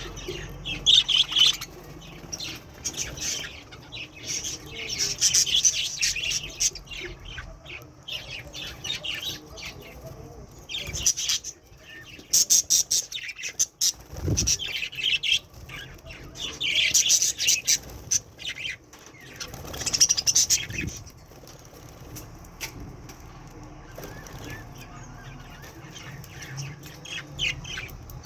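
Budgerigars bathing in water, flapping their wings in repeated loud bursts of rapid beats, with chirps and squawks between them.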